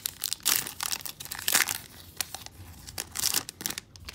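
Wrapper of a 2018 Topps Road to WrestleMania trading card pack being torn open and crinkled by hand. The crackling comes in irregular bursts and dies away near the end.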